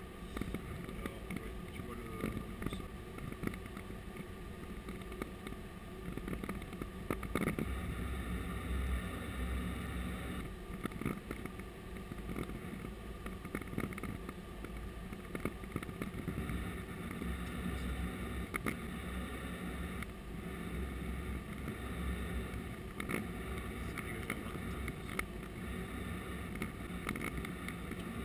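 Flight-deck noise of an Airbus A330-200 taxiing: a steady hum and low rumble from the engines at taxi power and the aircraft's systems. Scattered short knocks and rattles come through as it rolls over the apron.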